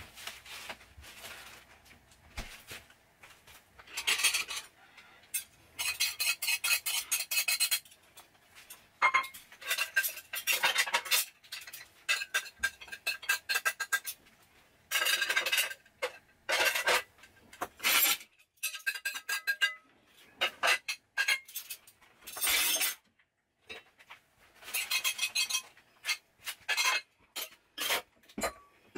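Ceramic plates and cutlery clinking and scraping against each other in irregular bursts, some strikes leaving a brief ringing tone.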